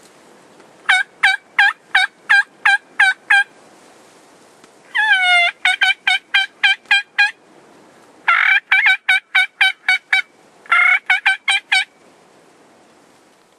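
Four runs of turkey hen yelps from a turkey call, each run of six to nine clear notes at about three a second. The later runs each begin with a longer, drawn-out note. This is calling to draw in toms.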